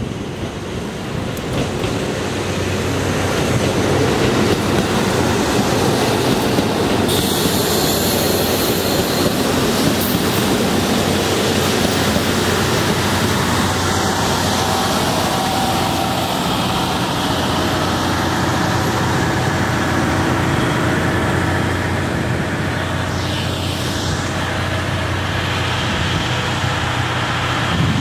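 KiHa 183 series diesel express railcars pulling into the station and rolling past, growing louder over the first few seconds and then running steadily as the train slows to its stop.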